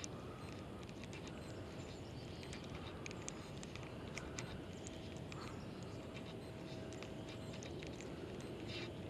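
Faint wind noise with scattered light ticks and a faint on-and-off whir from a fishing reel being cranked in short spells as a jerkbait is twitched and paused on the retrieve.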